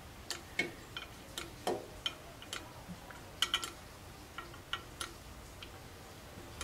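Pump oil can clicking as its trigger is worked, squirting oil onto the engine's push rods: a string of sharp, irregular clicks, some in quick pairs.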